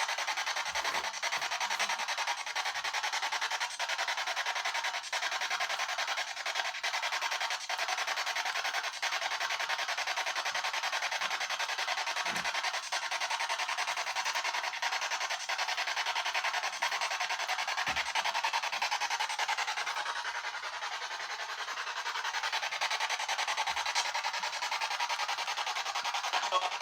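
Steady static-like hiss, with a few faint clicks scattered through it.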